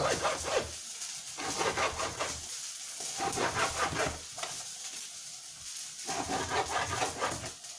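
A kitchen knife sawing through raw steak on a plastic chopping board, in several runs of quick strokes with short pauses between. The knife is not very sharp, so it saws rather than slices cleanly.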